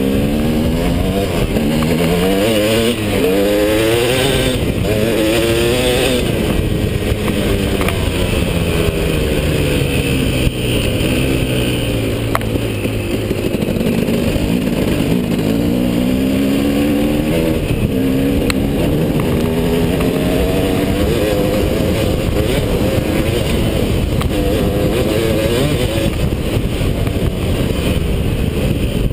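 KTM 250 SX two-stroke single-cylinder dirt bike engine under riding load, its pitch repeatedly climbing in quick runs as the throttle opens and the rider shifts up, then dropping lower and steadier as it slows mid-way.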